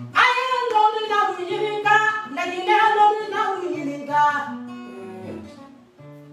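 A woman singing solo in a strong voice, in Mande griot (jeli) style, over plucked guitar. She bursts in at once with long held notes that bend and fall, and stops about two-thirds of the way through, leaving the guitar playing.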